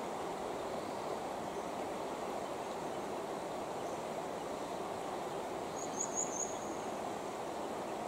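Steady rushing of river water flowing past an angler wading in the current. About six seconds in comes a brief high chirp of three or four quick notes.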